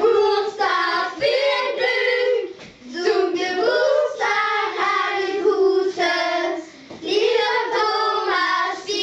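A group of children singing a birthday song together in unison, in sung phrases with a couple of short breaks.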